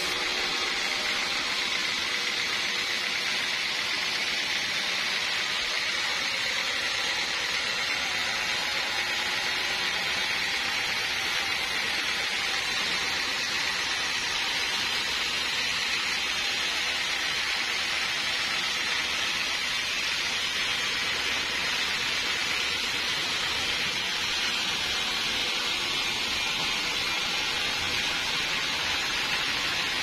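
Sawmill saw cutting through a large teak log: a steady, even rushing noise with no breaks, strongest in the upper range.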